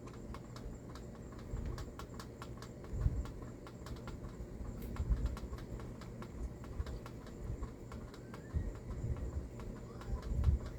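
Light clicks and a few dull knocks from a fastener being threaded by hand into a tapped hole, over a steady low background hum.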